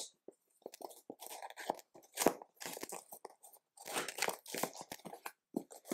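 Cardboard kit box being opened and its contents handled: irregular crunching and rustling of cardboard and paper in short clusters.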